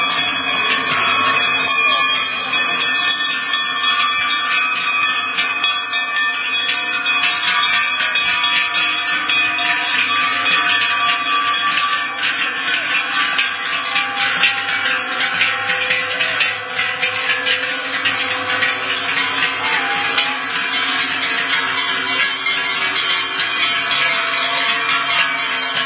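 Large cowbells on the necks of a passing herd of cows clanging continuously as the cows walk, many bells ringing at once and growing denser about ten seconds in.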